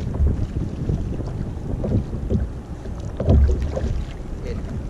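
Wind rumbling on the microphone aboard a kayak on open sea water, with a few dull bumps from handling on the kayak, the loudest about three seconds in.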